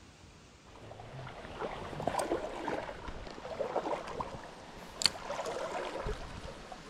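Creek water splashing and gurgling close by, growing louder about a second in, with one sharp click about five seconds in.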